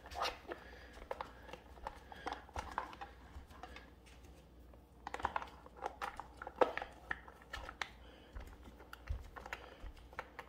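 Faint, irregular clicks and light knocks of gaming-chair parts being handled and lined up by hand during assembly. The clicks are busiest a little past the middle.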